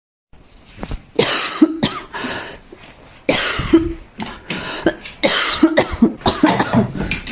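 A person coughing repeatedly in several fits of short, harsh coughs.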